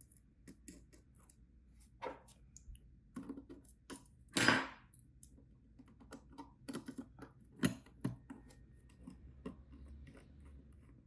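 Irregular small clicks and light clinks of keyboard hardware being handled as a split keyboard's bottom plate is fitted, with one louder brushing or scraping sound about four and a half seconds in.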